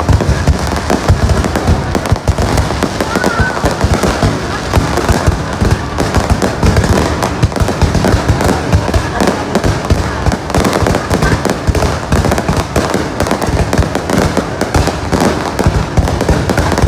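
Aerial fireworks going off in a dense, continuous barrage of bangs and crackles, with no let-up.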